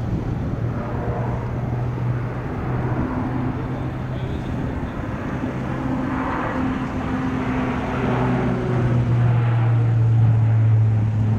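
Lockheed Martin C-130J Hercules's four Rolls-Royce AE 2100 turboprops with six-bladed propellers giving a low, steady propeller hum as it flies past overhead, growing louder over the last few seconds.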